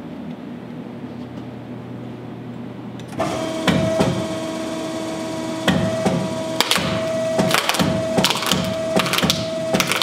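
Finn-Power hose crimping machine crushing a coconut in its radial dies. A low hum gives way, about three seconds in, to a steady whine as the press starts closing, over a run of sharp, irregular cracks as the shell splits and splinters.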